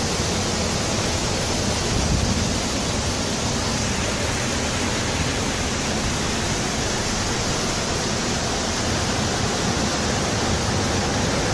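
Steady, even rush of storm wind blowing at over 100 mph, with no gusts or breaks.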